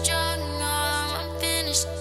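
Music: a track with steady held bass notes under layered chords, no words sung.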